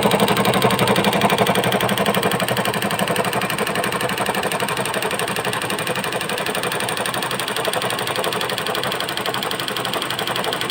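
Embroidery machine stitching steadily, its needle working in a rapid, even rhythm.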